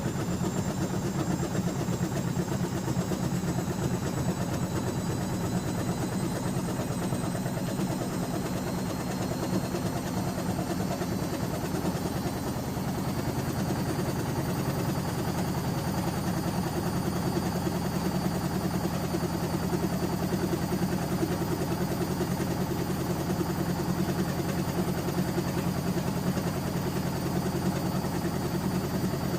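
Bauknecht GreenIntelligence Super Eco 6413 washing machine running steadily: a low hum with a thin high motor whine that rises slowly in pitch.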